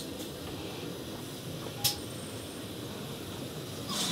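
GWR Castle class steam locomotive 4079 Pendennis Castle moving slowly with a steady hiss and hum and no exhaust beats. A single sharp click about two seconds in.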